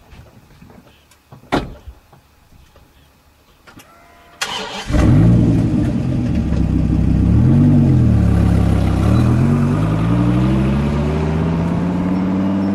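Dodge Viper's V10 engine starting up about four seconds in after a few light clicks, then running with one quick rev up and down, then pitch climbing steadily as the car pulls away.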